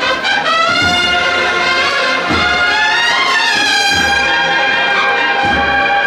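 Cornet-and-drum band playing a processional march: massed cornets hold a loud melody over bass drum strokes about every second and a half.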